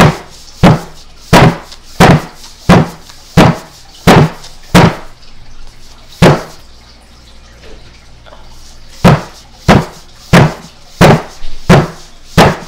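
A paper sugar bag packed with baby powder being slammed down on a table again and again to pack the powder hard: a run of loud thuds, about three every two seconds. The thuds pause for a couple of seconds just after the middle, then start again. The microphone rests on the same table, which makes each thud very loud.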